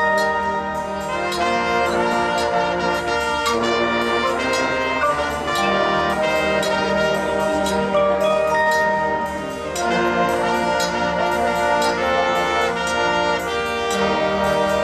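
A high school marching band's brass section playing sustained chords and melody lines, with regular sharp percussion hits underneath.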